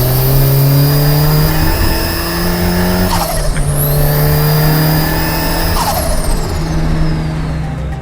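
Turbocharged 20-valve four-cylinder of an Audi A4 B5 (K16 turbo) accelerating hard, with a high turbo whistle climbing alongside the engine. About three seconds in there is a gear change with a short turbo flutter as the throttle closes, then it pulls again. Near six seconds it lifts off: another flutter, then the turbo whine slides down.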